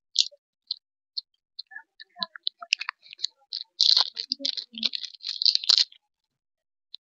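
Thin plastic wrapper crinkling and crackling as it is peeled and squeezed off a frozen ice-cream bar: scattered ticks at first, then a dense stretch of crackling from about three to six seconds in.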